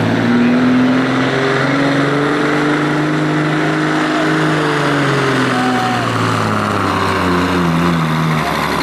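Semi truck's big diesel engine running loud and hard under heavy load while pulling a weighted sled, its pitch climbing, dipping around the middle and stepping down near the end.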